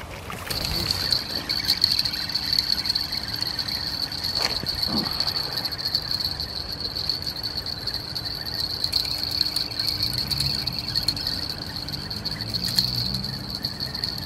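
Insects in the summer grass trilling steadily: a continuous high, finely pulsing buzz. A small splash comes right at the start as a fish drops back into the water.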